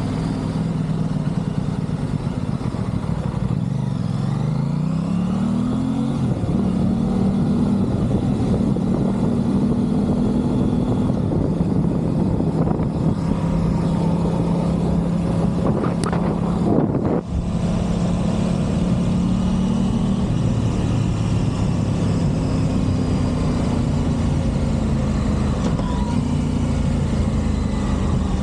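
Aprilia Tuono 660 parallel-twin engine running under way, revs climbing about five seconds in and then holding fairly steady. A brief sharp break in the sound comes about two-thirds of the way through.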